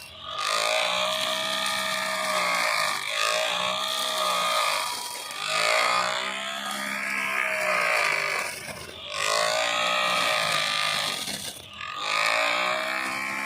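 Homemade grass trimmer driven by a 775 DC motor, whining as it cuts grass. Its pitch rises and falls in waves, with four brief dips.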